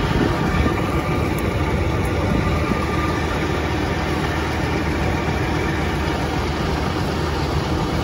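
Farm machinery engine running at a steady idle.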